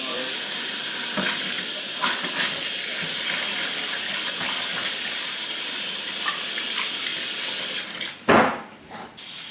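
Kitchen mixer tap running steadily into a stainless steel sink while adhesive bra pads are rinsed by hand, with a few light knocks of handling. About eight seconds in there is one loud knock against the sink, and the flow drops to a thinner, quieter stream.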